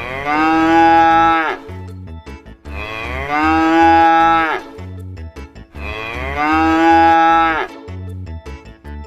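A cow mooing three times: three long, drawn-out calls a little over a second apart, each dropping in pitch as it ends. A light steady beat of background music runs underneath.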